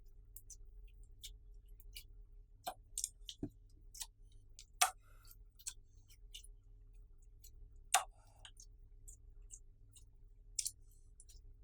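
Clear slime being worked by hand with makeup mixed in, giving irregular small clicks and pops. A few louder pops come near the middle and about two-thirds of the way through.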